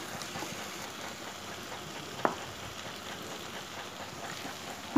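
Chopped vegetables frying gently in a non-stick pan, a soft steady sizzle as they are stirred with a spatula. One sharp knock a little past two seconds in.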